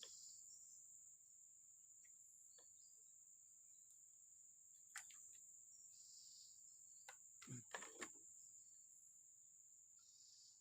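Faint, steady high-pitched insect drone, like crickets, with a few soft clicks and knocks about halfway through and again near the end.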